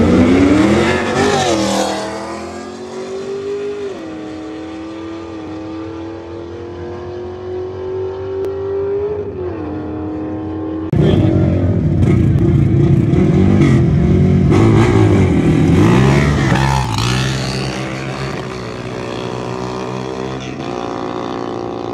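Drag-racing donk's engine at full throttle launching off the line, its pitch climbing steeply, then settling into a steady drone. About eleven seconds in, a louder engine running close by, its pitch swinging up and down as it revs.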